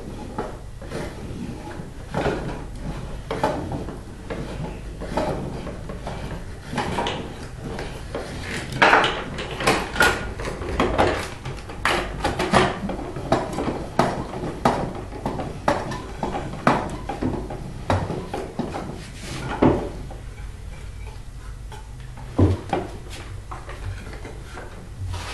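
Homemade toy log loader and logging truck worked by hand: a run of irregular small clicks, knocks and rattles as the boom swings and toy logs are handled, coming thickest in the middle and thinning out near the end.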